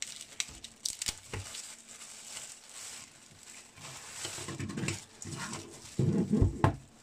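Clear plastic bag crinkling and rustling as a speaker woofer is unwrapped by hand, with scattered clicks and a few dull knocks of the speaker being handled near the end.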